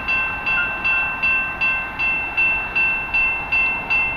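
Railroad grade-crossing bell ringing steadily, about two and a half strikes a second, each strike ringing briefly before the next. It is the warning while the crossing gates are down for an approaching train.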